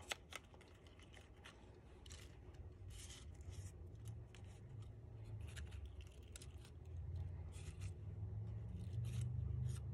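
Faint rustling and light clicks of stiff paper flower petals being handled and pressed by hand. A low hum grows louder over the last few seconds.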